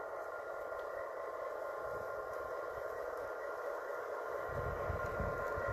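G scale model diesel locomotive running steadily with a thin motor whine as it pushes a snow plow car through snow on the track. A low rumble comes in near the end.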